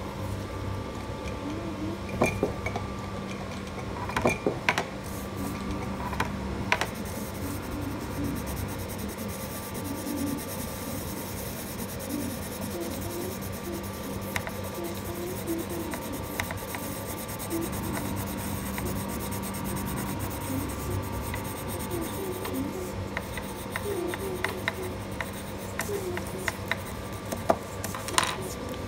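Coloured pencil shading on paper: a steady scratchy rubbing, with a few sharp taps now and then, more of them near the end.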